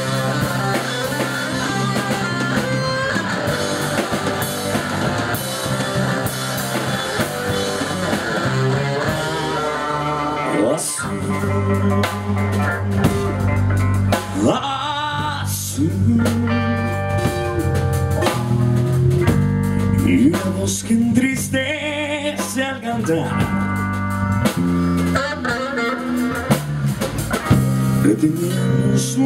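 Live rock band playing an instrumental passage: electric guitar over bass and drum kit. From about ten seconds in, a lead line of long held notes that slide in pitch comes to the front.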